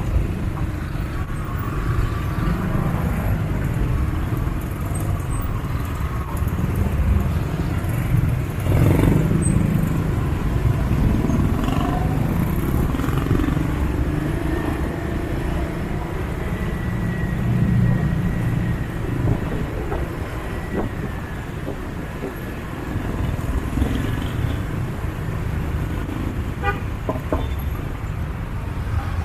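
Busy city street traffic: cars and motorcycles running past with a steady low rumble, louder for a moment about nine seconds in. A horn sounds among the traffic.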